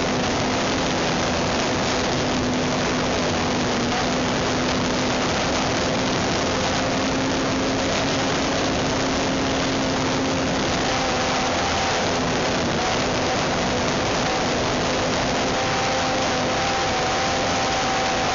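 Cox .049 Black Widow glow engine of a model airplane running with a thin, steady buzz that wavers slightly in pitch, under a loud, even hiss.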